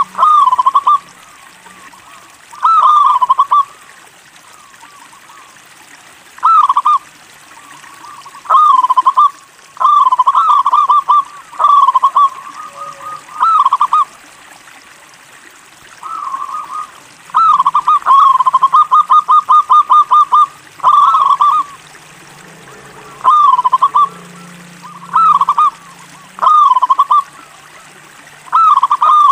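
Zebra dove (local perkutut) cooing: short phrases of quick staccato coos, repeated every second or two. About two-thirds of the way through comes a longer run of rapid notes.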